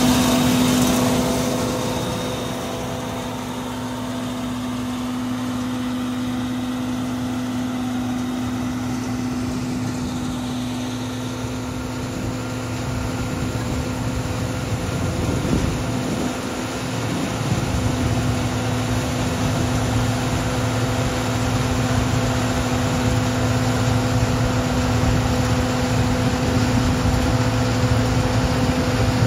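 Peanut harvester running steadily with an engine-like hum held at one constant pitch.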